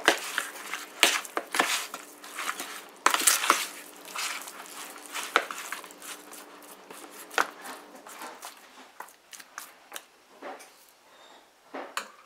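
Metal spoon mixing seasoning into raw chicken wings in a plastic bowl: irregular clacks of the spoon against the bowl and wet squishing of the meat. The stirring thins out after about eight seconds.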